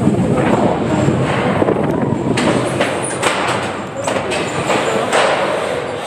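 Maurer Söhne spinning coaster car running along its steel track, a loud steady rumble of wheels broken by frequent irregular clunks and rattles.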